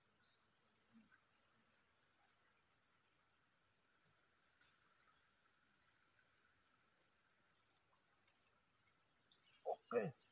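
A steady, high-pitched chorus of forest insects, shrilling without a break.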